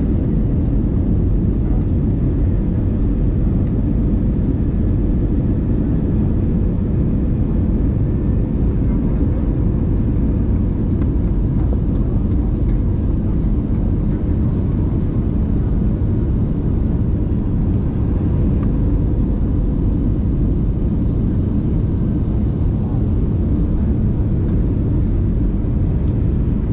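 Airliner cabin noise on the approach to landing: the jet engines and rushing airflow make a loud, steady rumble, with a faint steady hum running through it.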